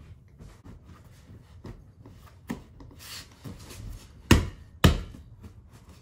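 Hands rubbing and pressing a new leather cover onto a car seat, with a few sharp knocks; the two loudest come about half a second apart in the second half.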